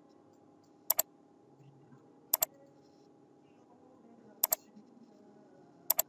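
Computer mouse button double-clicked four times, about a second and a half apart, over a faint steady background hum.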